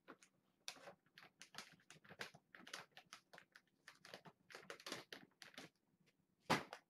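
Kitten eating, crunching its food in quick, irregular crunches, with one louder clack near the end.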